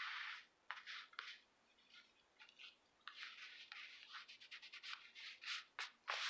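Hand rubbing and smoothing a paper napkin glued onto a paper tag: short scratchy rubs, with a quieter pause in the middle and a run of quick strokes after it.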